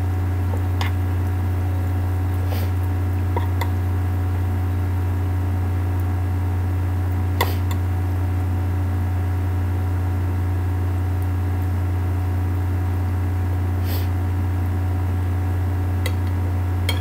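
A steady low hum throughout, with a few faint clicks of a spoon against a bowl as food is scooped, the clearest about seven seconds in.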